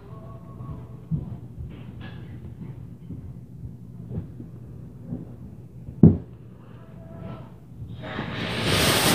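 Dull thumps through the ceiling, a small one about a second in and a heavy one about six seconds in, over faint muffled voices: what the resident takes for upstairs neighbors stomping. Near the end a loud rushing hiss swells up.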